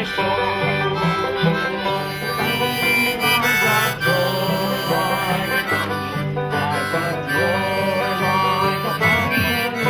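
Music: sustained melody notes over a bass line that steps from note to note.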